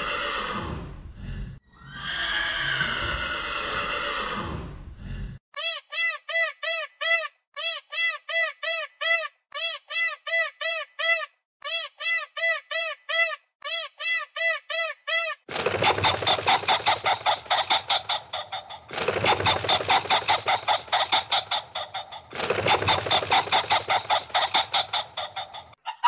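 Farm animal calls in turn: a horse whinnying for about five seconds, then a run of short, high, evenly repeated chirps in groups, then three bursts of rapid harsh calls of about three seconds each.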